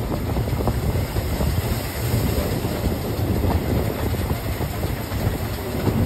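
Steam-hauled narrow-gauge train running, heard from a coach: a steady rumble of the wheels on the rails, with scattered short clicks.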